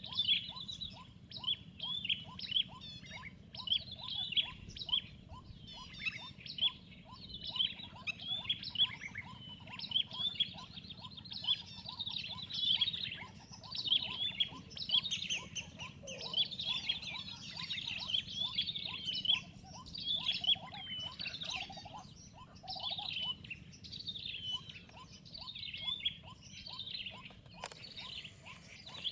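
Several birds calling and singing at once, a dense chorus of short, quick, sweeping chirps and whistles. Under it runs a steady series of lower, short notes repeated a few times a second.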